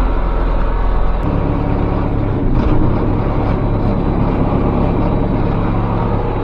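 Cab tractor's engine running steadily while mowing, heard from inside the cab. Its low note shifts about a second in.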